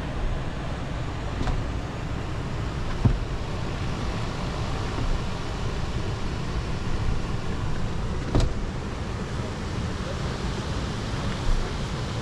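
2020 Kia Telluride's 3.8-litre V6 running, a steady low rumble heard from inside the cabin, with two sharp clicks about three and eight seconds in.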